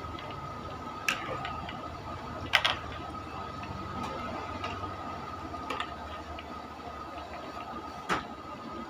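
Oil sizzling in a large aluminium wok during deep-frying, with a metal spatula knocking and scraping against the pan a few times, the loudest knock about two and a half seconds in and another near the end. A faint steady high tone runs underneath.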